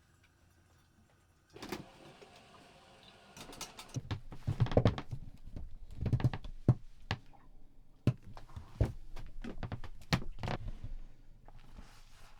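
A run of irregular knocks and thumps with rustling, starting about a second and a half in and busiest in the middle: things being handled and bumped.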